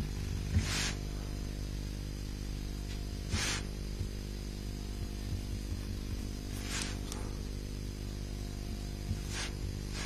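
Steady electrical hum with hiss in the background, and a soft, short rushing sound about every three seconds.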